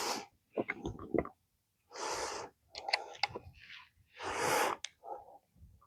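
Breathy huffs, two main ones about half a second long, with short sharp clicks and taps of hand tools on metal between them.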